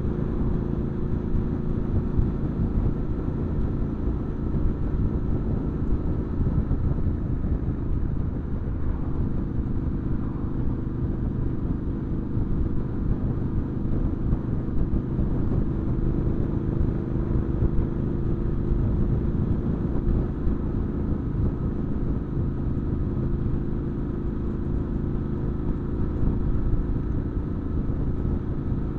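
Triumph Scrambler 900's parallel-twin engine running steadily through an aftermarket Arrow exhaust while the bike cruises at a constant speed.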